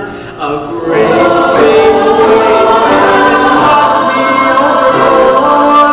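Mixed-voice high-school choir singing a show tune in full harmony, coming in loudly about a second in after a brief dip.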